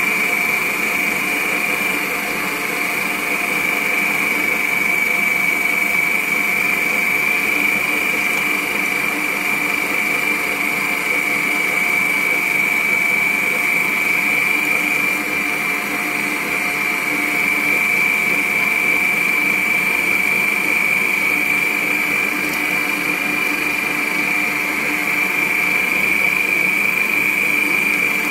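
A 1000 W electric stand mixer running steadily, beating eggs with sugar. Its motor gives an even high whine over a lower hum.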